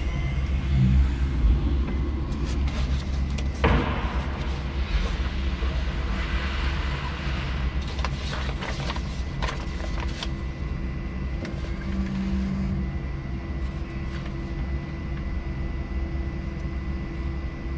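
A 5-ton electric forklift driving with a loaded pallet, heard from inside its cab: a steady low rumble with scattered clicks and rattles and a faint, steady high whine.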